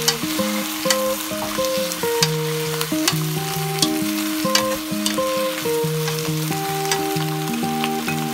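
Fish cake and vegetables sizzling steadily in a hot wok while being stir-fried with two wooden spatulas, which click against the pan now and then. Background music with held notes plays underneath.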